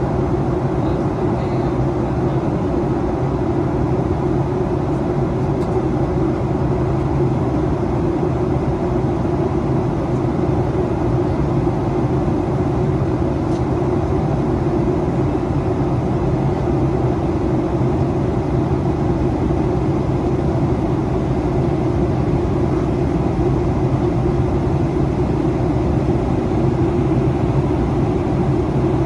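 Steady cabin noise inside a Boeing 737-800 in descent: a constant rush of airflow over the fuselage with the low hum of its CFM56-7B turbofan engines.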